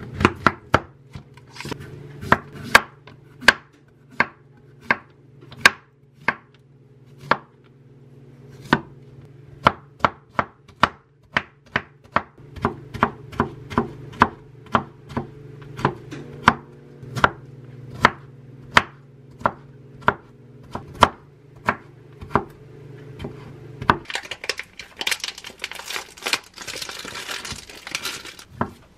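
Chef's knife chopping a zucchini on a wooden cutting board: sharp irregular knocks, about one or two a second and quicker in runs. Near the end, a plastic wrapper crinkles as a crab stick is unwrapped.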